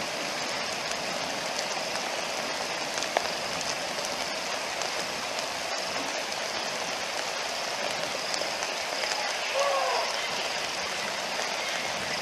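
Steady rain falling on river water and reeds, an even hiss. A brief call that wavers up and down in pitch stands out near the end.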